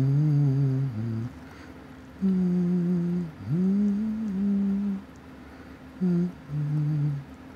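A man humming a slow tune to himself with his mouth closed: a string of low held notes, some sliding up in pitch, with short breaks between them.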